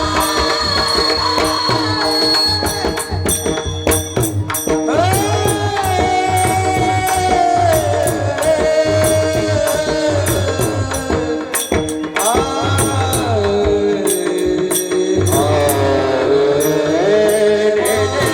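Devotional kirtan music: a singer draws out long, gliding, ornamented notes without clear words, over a steady drone. A hand drum keeps a regular beat, and small metal percussion strikes crisply and often.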